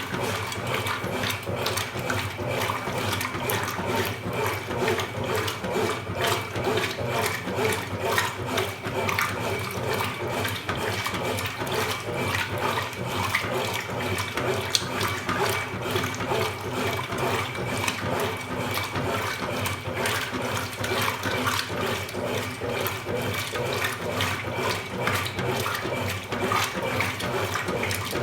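Consul Super Cargo 8 kg top-loading washing machine with water rushing and splashing in its tub, steady and unbroken, over a faint low hum.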